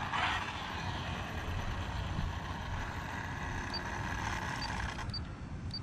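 Steady low rumble of truck traffic on the road, with a brief hiss just after the start and a few faint short high beeps in the second half.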